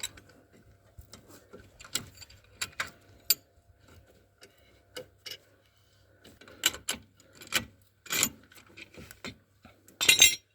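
Irregular metallic clicks, taps and scrapes of hand tools and brake parts during rear brake pad work on a disc brake caliper, with a longer, louder scrape near the end.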